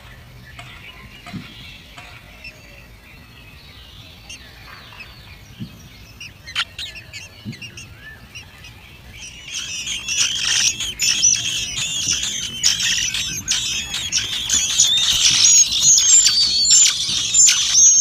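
Thrush nestlings begging: faint scattered chirps at first, then, about halfway through, a dense chorus of high, rapid begging calls that grows louder as the chicks gape for food.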